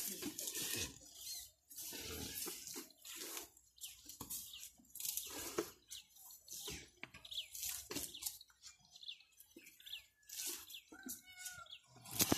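Asian elephants feeding close by: irregular rustling, tearing and crunching as they pull up and chew grass and shrubs and scuff the ground. A few short chirps come in near the end.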